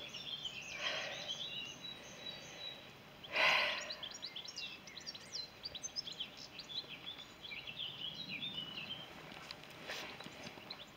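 Songbirds chirping and trilling in quick, high notes, with a brief rush of noise about three and a half seconds in.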